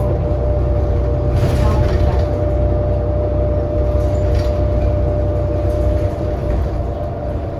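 Interior of a New Flyer XD40 diesel transit bus running along, with a steady low engine and road rumble and a steady high whine running over it. The whine is the odd sound this coach is known for. A brief hiss comes in around 1.5 seconds.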